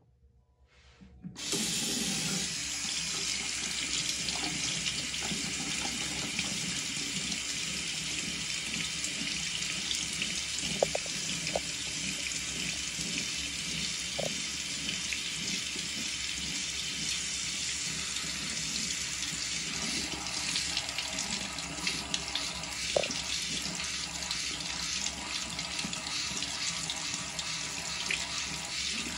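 Bathroom sink faucet turned on about a second and a half in, its stream then running steadily over a cupped hand and splashing into the basin, with a few small drip-like pings.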